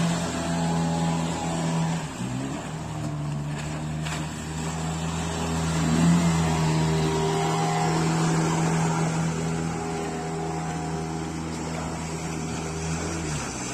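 Motorboat engine running steadily over water noise, its pitch dipping briefly about two seconds in and falling off near the end as the throttle eases.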